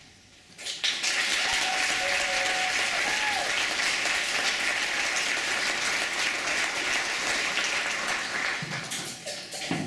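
Theatre audience applauding: a dense clapping begins suddenly about half a second in, holds steady, and dies away near the end.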